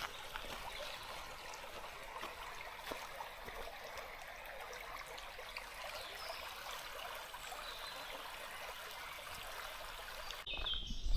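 Small forest stream trickling and babbling steadily. About ten seconds in it cuts off abruptly, giving way to a low rumble and a few short high chirps.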